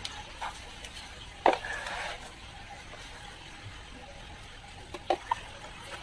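Handling noise from work at a 15-inch speaker cone with a soldering iron: a sharp tap about a second and a half in, followed by a short scrape, then two light clicks about five seconds in.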